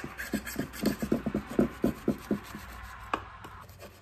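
A knife scraping around the inside edge of a glass baking dish in a run of short, quick strokes, loosening a freshly baked pineapple upside-down cake from the sides, with a single sharp tap about three seconds in.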